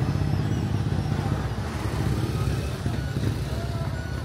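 Steady low rumble of motor traffic, an engine running close by.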